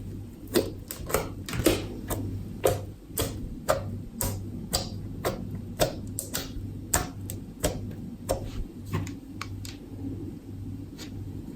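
Slime being squeezed and poked, giving a steady series of sharp clicking pops about two a second, over a low steady hum.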